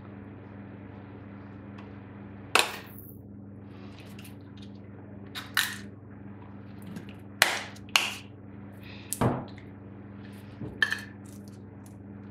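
Plastic Heinz tomato ketchup squeeze bottle squeezed upside down over a plate: about six sharp sputtering pops and squirts, a second or two apart, as air and ketchup spurt from the nozzle.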